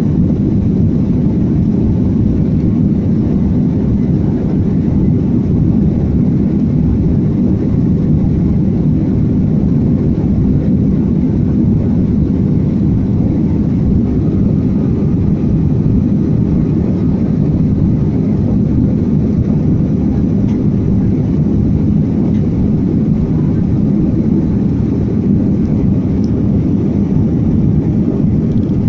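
Steady, low cabin noise of an airliner climbing out after takeoff: its jet engines and the rush of air over the fuselage, heard from a passenger seat.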